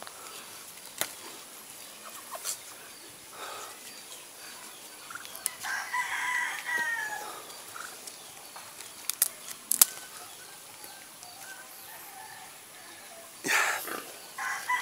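A rooster crows once, about six seconds in: one long call that falls in pitch at the end. Sharp clicks and a brief rustle come from soursop leaves and twigs being handled and picked, the loudest clicks a little before ten seconds in.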